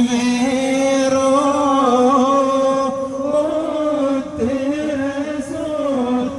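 A man's voice chanting an Islamic devotional song in long, held notes that waver and bend in pitch, with only brief breaks for breath.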